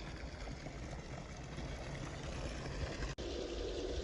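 Hot spring water pouring steadily into an outdoor bath, a continuous rushing splash.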